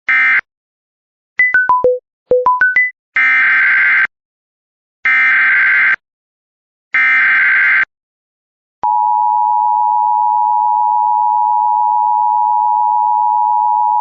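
Emergency Alert System tones. A final short data burst is followed by four falling beeps and four rising beeps. Then come three harsh, roughly one-second SAME header data bursts about a second apart, which announce the next alert. About nine seconds in, the steady two-tone EAS attention signal begins and holds.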